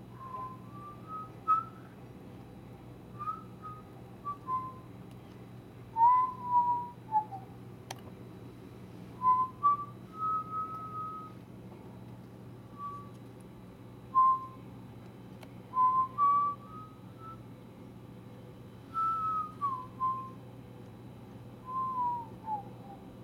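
A person whistling a slow, wandering tune in short phrases of held and gliding notes, over a steady low hum.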